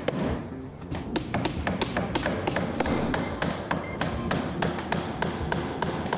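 Claw hammer driving nails into small wooden setting blocks on a window sill: quick, steady blows, several a second.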